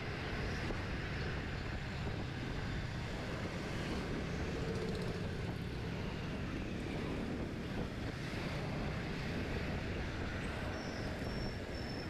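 Wind noise on the microphone and road noise from a two-wheeler riding through city traffic, a steady rushing with the engine and the surrounding traffic underneath. A few short high-pitched tones come near the end.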